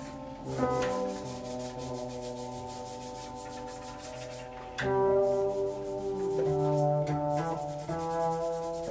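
Electric upright bass playing long sustained, bowed-sounding notes with a rough rubbing edge. The pitch changes a few times, and a louder, higher note comes in about five seconds in.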